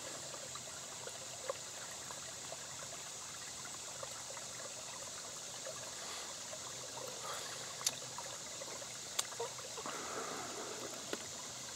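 Shallow woodland stream trickling gently and steadily over rocks, with a steady high insect-like drone and a few soft clicks in the second half.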